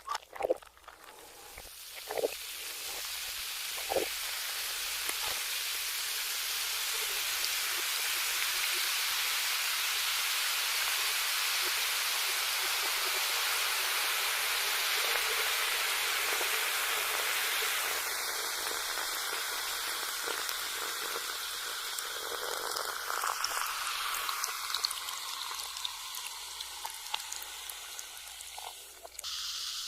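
A steady sizzling hiss played in reverse. It swells in over the first couple of seconds, holds, and fades away near the end, with a few sharp clicks near the start.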